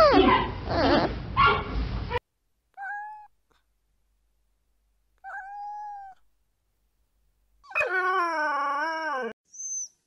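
Giant panda calls with gliding pitch for about two seconds. Then a domestic cat meows: two short, even meows and, near the end, a longer, lower meow that falls at its close. High thin whines start just before the end.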